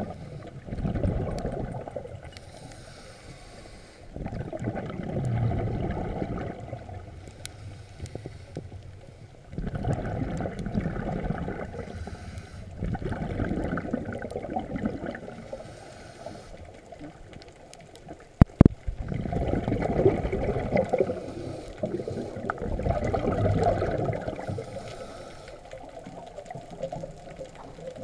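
Underwater bubbling from a scuba diver's exhaled breath through the regulator, coming in gurgling bursts every few seconds with quieter gaps between breaths. A single sharp click sounds about two-thirds of the way through.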